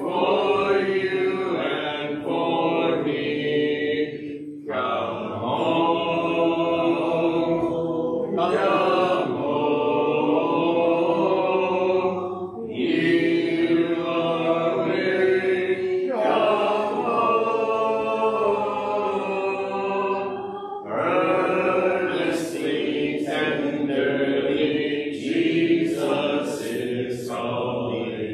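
Congregation singing a hymn a cappella, with no instruments, in sung lines a few seconds long and short breaks between them.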